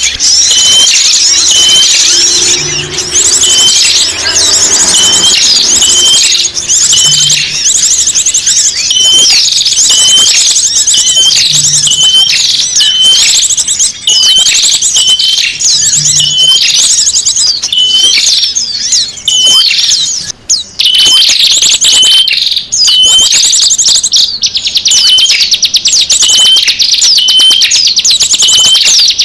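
Bird-lure recording of many small birds calling at once: dense, high twittering and rapid trills, with one short upturned chip repeating about every second and a half.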